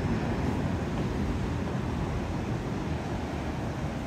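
Steady rain with wind buffeting the microphone, a constant low, unsteady rush under an even hiss.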